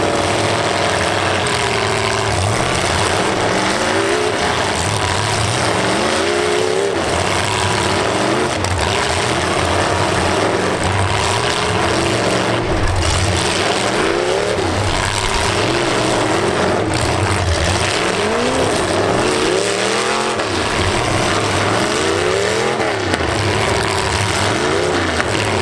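Several demolition derby cars' engines revving hard, pitch swinging up and down over and over as the cars shove at one another, over a steady wash of noise.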